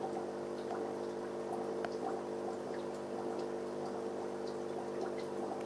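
Steady hum of an aquarium pump, with water trickling and small drips over it.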